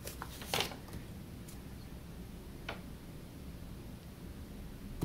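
Quiet room tone with a few light clicks and taps, the clearest about half a second in, from a small carved wooden gnome figure being handled on a paper-covered table.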